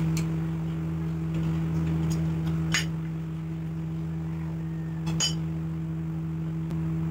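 About four short, sharp metal clinks, the loudest a little before the middle, as the blade-clamp screws of an electric hand planer are undone with an Allen key and the screws and clamp plate are set down on a wooden bench. A steady low hum runs underneath.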